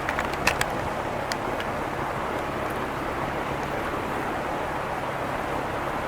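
Steady outdoor background noise with a faint low hum, and a few light clicks in the first second and a half.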